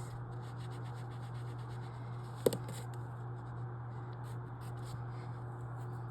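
Marks being written on paper: short scratchy pen strokes, with one sharp tap about two and a half seconds in, over a steady low hum.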